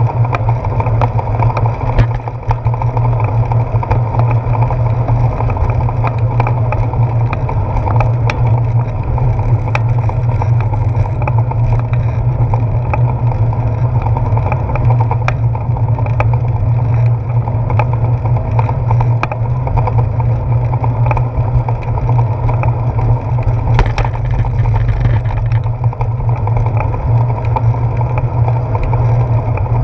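Steady low rumble and wind noise of a bicycle rolling along a wet paved path, picked up through a handlebar-mounted GoPro Hero 4 in its housing, with frequent short clicks and knocks.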